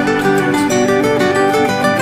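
Background music led by plucked acoustic guitar, with a steady run of notes.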